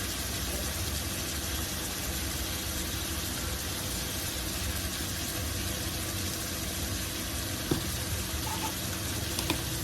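Steady stovetop cooking noise: ground beef and onion frying in a pot, an even sizzle over a low steady hum, with a couple of small clicks near the end.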